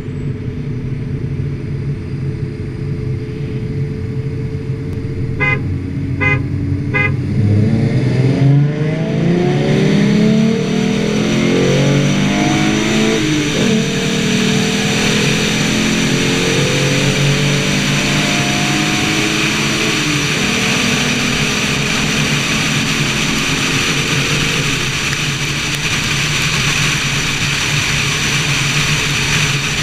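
2011 Ford Mustang's 3.7-litre V6 running at low speed, then three short horn beeps, then full-throttle acceleration with the engine note rising and dropping back at each shift of the manual gearbox, twice. After that it settles into steady engine, road and wind noise at highway speed.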